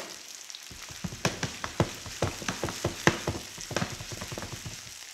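Veal medallions in mushroom sauce sizzling in a frying pan just after white wine has been poured in, with a steady hiss and a run of sharp pops and crackles through the middle that then settles back to the hiss.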